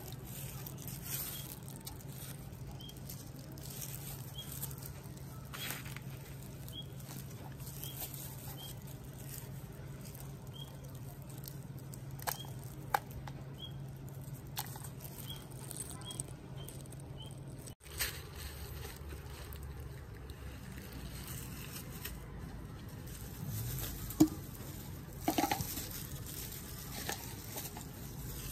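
Hands in a plastic glove handling a rooted plant cutting: soft rustling and a few sharp clicks, over a steady low hum and faint high chirps repeating about once a second. The hum cuts off suddenly about two-thirds of the way through.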